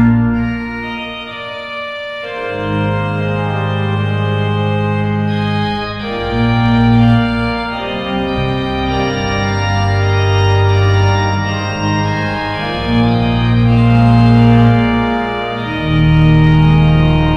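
Hauptwerk virtual pipe organ, sampled church pipe organ, playing slow sustained chords over deep pedal bass notes. The bass drops out briefly near the start and comes back in about two and a half seconds in.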